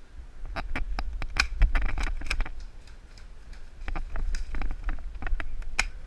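Airsoft gunfire: rapid, irregular sharp cracks and clicks in clusters, easing off briefly midway, over a steady low rumble.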